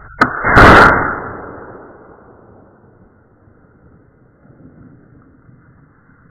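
Homemade combustion potato cannon firing: a sharp click, then a loud bang about half a second in that dies away over about a second.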